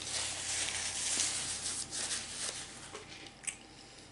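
Close-up eating sounds of spaghetti all'amatriciana: a wet, hissy slurp for about three seconds, with small ticks in it. A few short mouth clicks follow about three and a half seconds in.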